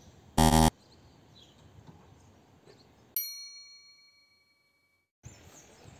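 A short, loud buzz, then a single bell-like ding, an editing sound effect marking a time-skip title card, that rings and fades over about a second, followed by a second of dead silence.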